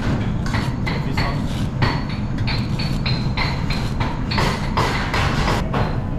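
Kitchen knife chopping on a cutting board in regular strokes, about three a second, some with a short metallic ring, over a steady low hum.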